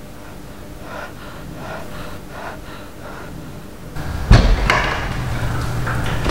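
Footsteps, about two a second, then about four seconds in a heavy thump as a wooden double door is pushed open, followed by knocking and rustling as someone comes through.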